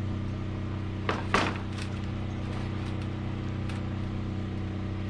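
A steady low engine hum, with two sharp knocks close together a little over a second in.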